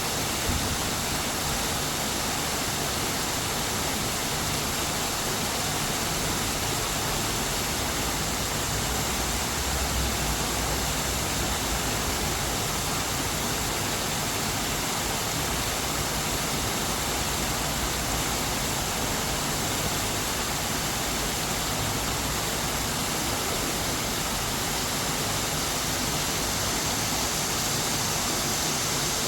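Waterfall gushing into a valley stream: a steady rush of falling water with no let-up.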